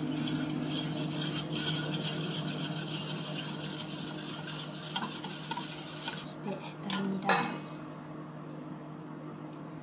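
A wire balloon whisk beating egg yolks and sugar in a stainless steel bowl: a rapid metal scraping clatter that stops about six seconds in, followed by a couple of sharp clinks. A steady low hum runs underneath.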